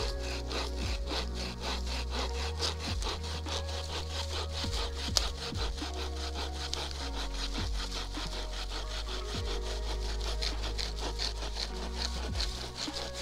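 Bahco Laplander folding saw cutting through a dead, slightly rotten branch in rapid, even back-and-forth strokes, the blade rasping on both push and pull. There is one sharper crack about five seconds in.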